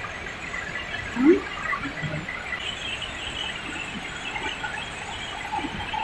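Steady rushing roar of a large waterfall. About a second in, a short rising squeal stands out as the loudest sound.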